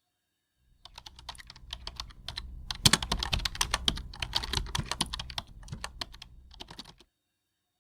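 Computer keyboard typing: a quick, irregular run of key clicks lasting about six seconds, starting about a second in and stopping abruptly near the end.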